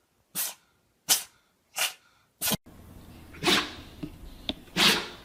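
A pet sneezing again and again: four short, sharp sneezes in quick succession, then two longer, louder ones.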